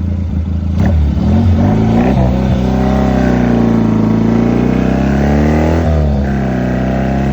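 Motorcycle engine running under load on a ride, its pitch rising and falling as the bike speeds up and slows, with a sudden drop in pitch about six seconds in before it picks up again.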